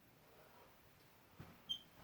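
Near silence: room tone, with a faint knock and then a brief high beep near the end.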